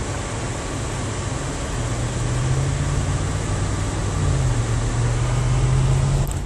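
Engine hum and road noise inside a moving car's cabin, growing louder about two seconds in as the engine note rises. A few clicks near the end, then the noise drops suddenly.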